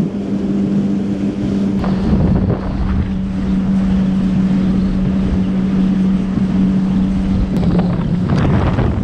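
Yamaha FX HO WaveRunner's four-stroke engine running at a steady cruising pitch under way, with water rushing past the hull and wind buffeting the microphone.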